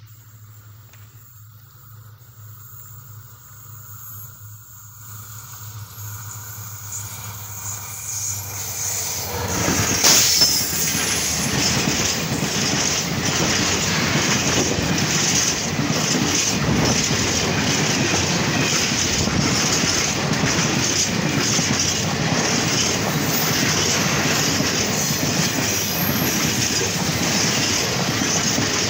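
A freight train of fuel tank wagons approaching and passing close by. It grows louder over the first ten seconds and is loudest as the front goes by about ten seconds in. Then comes a steady rumble with a rhythmic clatter of wagon wheels over the rail joints.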